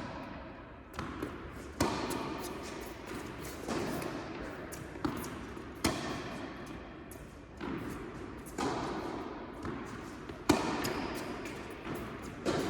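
Tennis rally: racket strikes on the ball and the ball bouncing on the court, a sharp hit every second or two, each echoing in the indoor hall.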